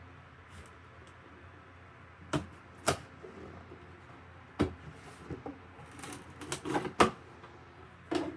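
Cardboard box being handled and opened by hand: scattered knocks, taps and scrapes, with a few sharp single knocks and a busy run of them about two-thirds of the way through.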